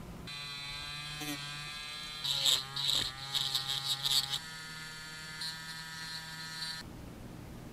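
Handheld rotary tool motor running with a steady whine, turning a small white plastic piece in its chuck like a mini lathe while a metal point is held against it. Loud scraping from the cut comes about two seconds in and lasts about two seconds. The motor's pitch steps a few times, and it switches off abruptly near the end.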